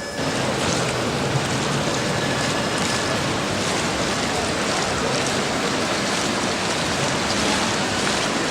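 Steady rush of falling, splashing water from a park fountain or waterfall, coming in suddenly right at the start.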